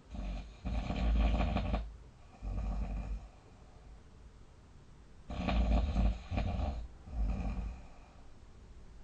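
A person snoring in sleep, two breaths about five seconds apart. Each is a snore lasting over a second followed by a shorter one.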